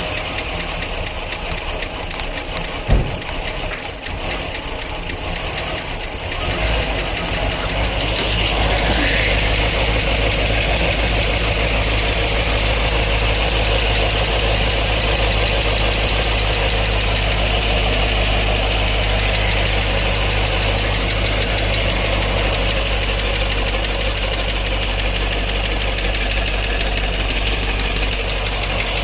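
LS V8 engine with a Brian Tooley Racing Truck Norris cam idling steadily after its first start, untuned, with a faint tick being checked as possible lifter noise. The sound grows louder about six seconds in.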